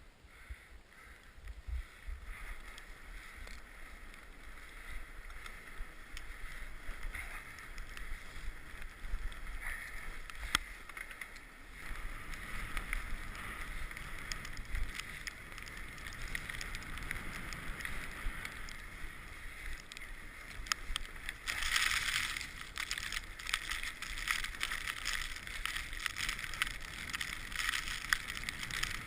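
Mountain bike riding along a trail: tyre rolling noise with small rattles and clicks, and a low wind rumble on the action-camera microphone. It turns louder and rougher about two-thirds of the way in and again near the end.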